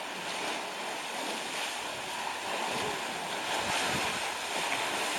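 Steady rushing splash of water churned up by an African elephant in its pool, growing a little louder about two seconds in.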